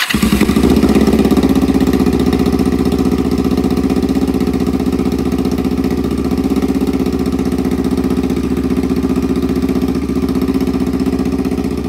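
Kawasaki Vulcan 500 (EN500) parallel-twin engine running steadily at idle, cold, just started after the bike has sat unused. A little louder in the first couple of seconds, then it settles.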